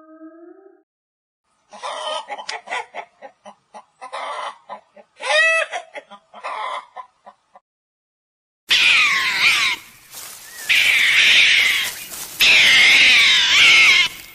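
Chickens clucking in quick short calls, with one longer drawn-out call in the middle. After a short pause comes a loud, dense run of high wavering calls.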